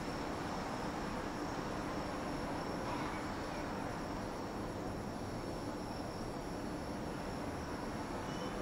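Steady outdoor evening ambience: a constant low wash of distant town noise with a high, steady insect trill over it.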